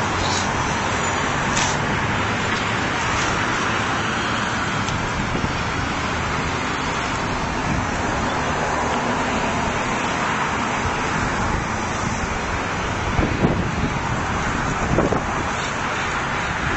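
Steady road traffic noise. Near the end a few gusts of wind buffet the microphone.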